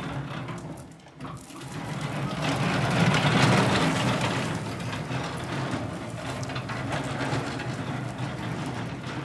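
BT OSE250 electric order picker driving on asphalt: a steady electric drive hum with the noise of its wheels rolling. The sound dips briefly about a second in, then swells as the truck moves off.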